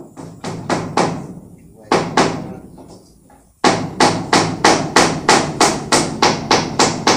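A dog lapping from a plastic bucket, a run of wet, sharp laps, uneven at first and then, from about halfway, a steady rhythm of about three laps a second.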